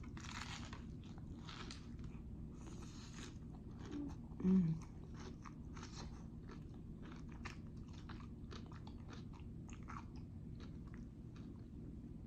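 Close-up mukbang chewing of jalapeño poppers: wet mouth clicks and crunchy bites. About four and a half seconds in there is one brief, louder low hum.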